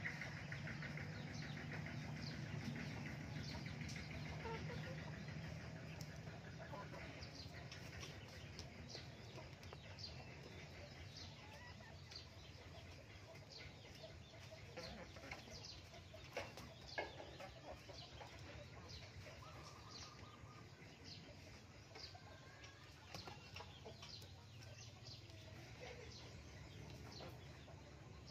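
Faint clucking of a chicken, over a low hum and scattered soft clicks.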